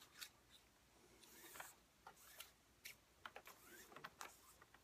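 Near silence with faint rustling and light clicks of cord being worked and drawn through a knot on a mandrel with a fid.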